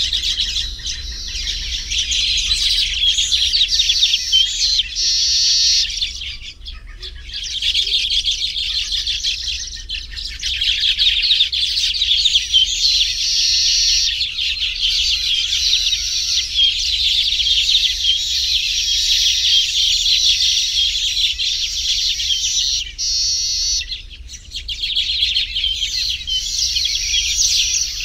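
Baya weavers calling while nesting: a dense, continuous chatter of many high chirps, which thins out briefly about six seconds in and again about four seconds before the end.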